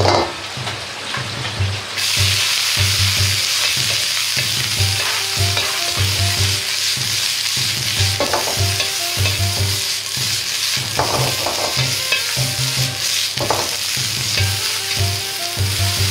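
Vegetables sizzling loudly as they are stir-fried in a hot oiled wok, moved about with a metal ladle. The sizzle starts suddenly about two seconds in, as the vegetables hit the hot oil, and then holds steady.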